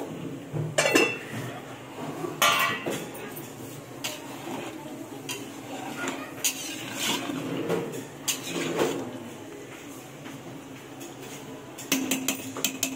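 Metal spoon clinking and scraping against a cooking pot in scattered knocks, with a quick run of rapid clinks near the end.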